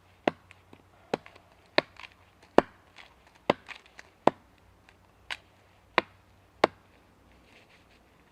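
Wood being chopped: nine sharp blows at an even pace, about one every three-quarters of a second.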